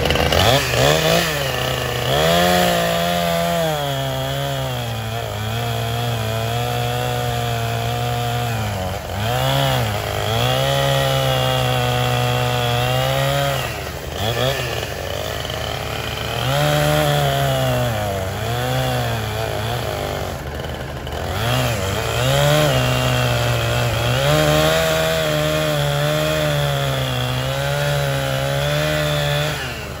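Husqvarna 460 two-stroke chainsaw cutting through a log, its engine pitch rising and sagging as the chain bites, with several brief drops in pitch between cuts.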